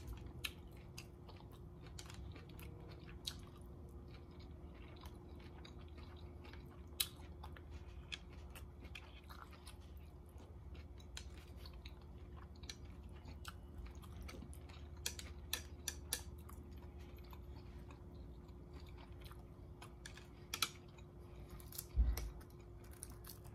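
Quiet, close-up chewing of a mouthful of orange chicken and rice, with many small clicks scattered throughout. A louder dull knock comes near the end.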